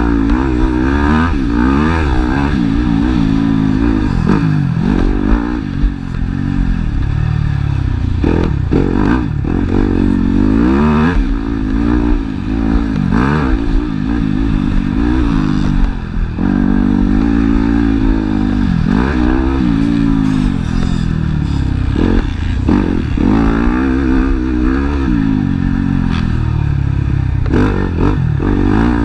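Motocross dirt bike engine heard from the rider's own helmet camera, its pitch climbing and dropping over and over as the rider accelerates hard, shifts gears and backs off into turns and jumps.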